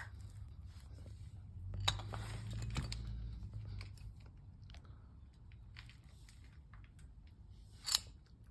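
Handling noise: scattered light clicks and crackles over a low steady hum, busiest about two seconds in, with one sharper click near the end.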